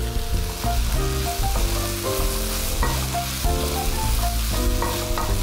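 Strips of carrot, pepper and onion sizzling in hot oil in a wok, with a wooden spoon stirring them. Background music runs along with it: a melody of short notes over a bass line.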